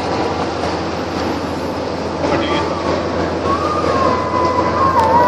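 Tour motor boat's engine running steadily, a continuous rumble under a hiss of noise. About three and a half seconds in, a thin, steady whistle-like tone joins it and holds to the end.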